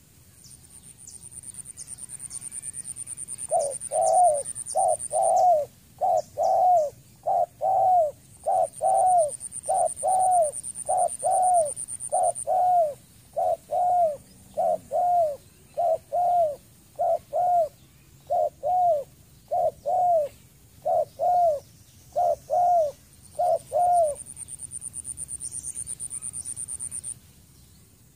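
Spotted dove cooing: a long series of about twenty low, arched coos, roughly one a second, starting a few seconds in and stopping a few seconds before the end. A high, steady buzz comes and goes over it.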